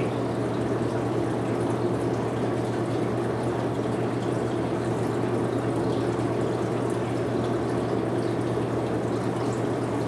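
Steady rush of water as a newly installed ice-machine water filter is flushed through to the drain, with a constant low hum underneath.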